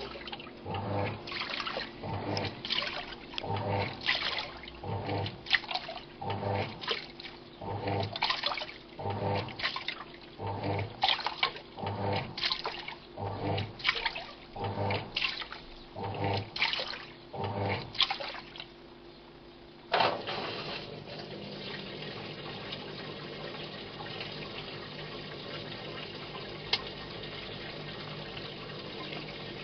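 Samsung WA89V top-loading washing machine agitating its wash water, the motor swishing the load back and forth about once a second with a low hum. The agitation stops, and about two-thirds of the way in a steady rush of water starts up as the wash ends and the rinse begins.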